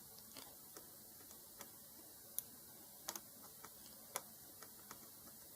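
Faint, irregular light clicks and taps, about ten in a few seconds, over a low steady hiss. They come from a small metal tool, the soldering iron tip, touching and tapping the charge-port pins on a phone's circuit board during soldering.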